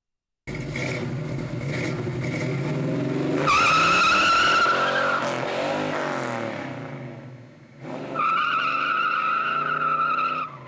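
1972 Chevelle SS's LS5 454 big-block V8 revving hard while the rear tyres spin and squeal in a burnout. The squeal starts about three seconds in and fades away, then a second long tyre squeal starts about eight seconds in and cuts off suddenly near the end.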